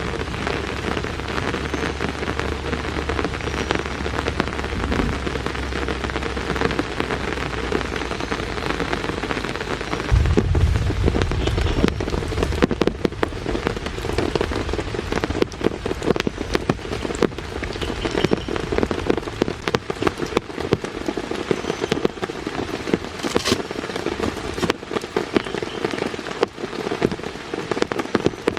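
Heavy rain falling steadily, with many distinct drops striking close by. A deep low rumble runs under it and swells about ten seconds in, then fades.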